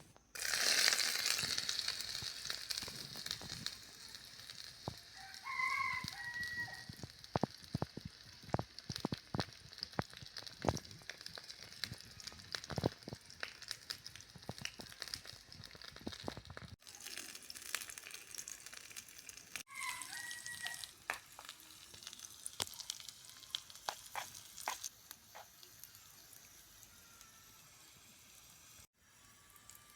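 Food frying in hot oil in a tiny cooking pot. A sudden loud sizzle starts about half a second in, then eases off into a quieter sizzle with scattered crackling pops.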